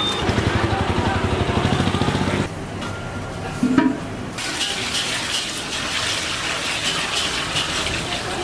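A fast, even, low pulsing for the first two and a half seconds, then a single knock, then liquid poured into a large aluminium pot of water on a gas burner: a steady splashing hiss.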